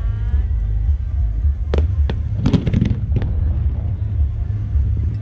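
Aerial fireworks bursting: a few sharp bangs in quick succession between about two and three seconds in, over a steady low rumble.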